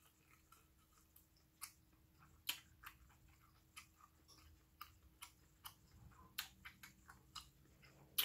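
A person chewing a mouthful of beef tripe and intestines with the mouth close to the microphone: faint, irregular wet clicks and smacks, about two a second.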